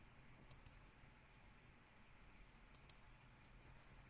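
Near silence over a faint hum, broken by two pairs of light computer-mouse clicks, one about half a second in and one near three seconds in.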